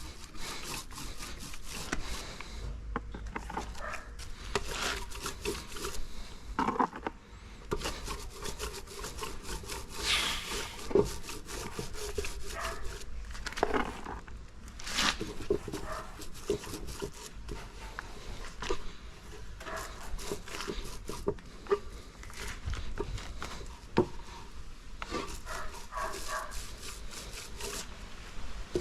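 Irregular rubbing and scraping strokes on a plywood board, with scattered light knocks, as the new boat transom is worked by hand.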